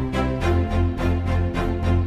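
Background music with a steady beat, sustained tones and a strong bass line that shifts to a lower note about half a second in.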